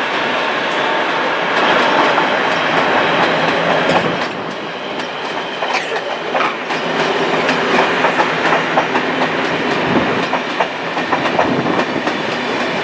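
Passenger train coaches rolling past, their wheels clattering over rail joints and points: a steady rush of running noise broken by rapid clicks, which come thicker in the second half.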